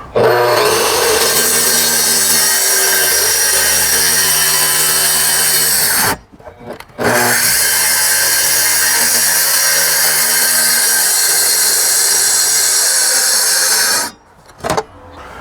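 Track saw cutting along its track through the wall to open a window hole. It runs steadily for about six seconds, stops briefly, then cuts for about seven more seconds before stopping, with a short final burst near the end.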